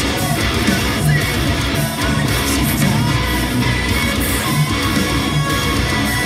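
Heavy metal electric guitar: an Acacia Romulus played through a Line 6 Helix modeller, over a loud recorded track of the song with a vocal part.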